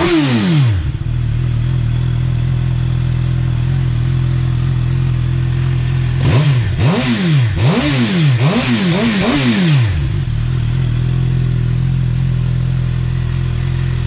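Suzuki GSX-R750 inline-four idling through an Akrapovic slip-on exhaust with the baffle removed, revved in quick throttle blips: a few blips dying away in the first second, a steady idle, then a run of about six quick revs in the middle before settling back to idle.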